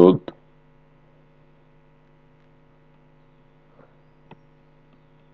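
Steady electrical hum, a faint drone made of several even tones, with two faint clicks a little before four seconds in.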